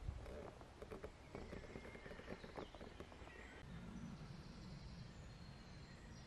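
Footsteps walking on a rutted, muddy woodland track: uneven soft steps for the first few seconds, then they stop and only a faint steady outdoor background remains.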